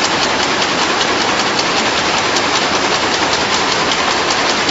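Chewing gum making machine running, its mechanism clattering in a fast even rhythm of about four or five clacks a second over steady machine noise.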